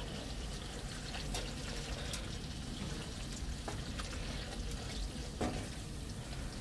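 Wooden spoon stirring pasta through a creamy courgette and bacon sauce in a large frying pan, with a few light taps and scrapes of the spoon against the pan over a steady low hiss.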